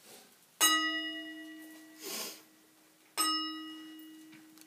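Buddhist bowl bell (kin) struck twice, about two and a half seconds apart, each strike ringing on and slowly dying away as a low hum under several higher tones. The strokes mark the close of the sutra reading before the dedication of merit.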